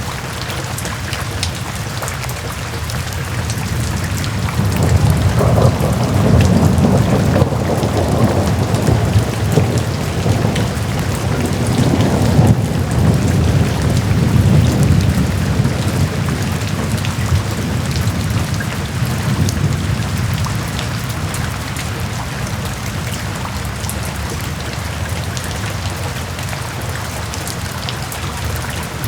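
Steady rain falling, an even patter of drops. A long, low rumble swells in about four seconds in, peaks, and fades away over the next fifteen seconds or so.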